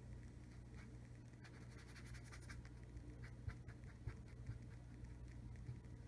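Faint, irregular short strokes of a paintbrush scratching across a Masonite board as a shape is drawn in with burnt sienna acrylic, over a low steady hum.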